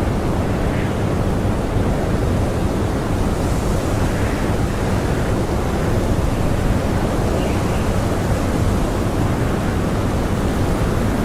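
Strong blizzard wind blowing steadily, a dense rushing noise heaviest in the low end, with faint gusts swelling now and then.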